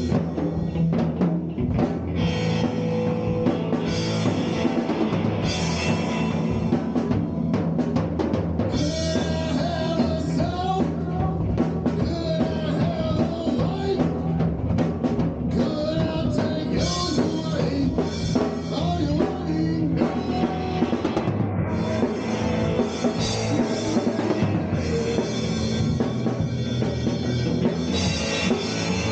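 Power trio playing a psychedelic rock jam live: drum kit with cymbals, electric guitar and bass guitar.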